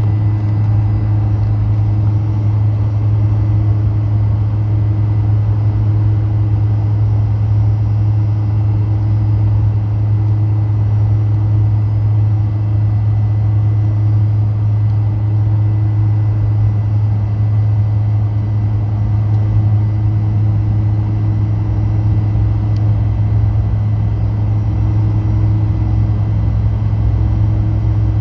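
The Fokker 100's rear-mounted Rolls-Royce Tay 650-15 turbofan running steadily at low taxi power, heard inside the cabin beside the engine. It makes a loud, even low hum with a faint thin whine above it.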